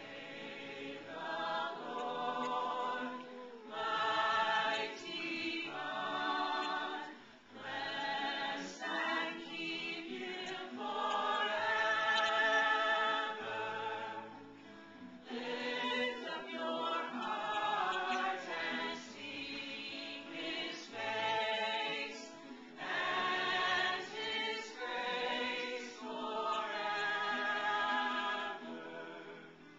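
A small group of voices singing a gospel worship song together, in sustained phrases of a few seconds each with short breaks between them.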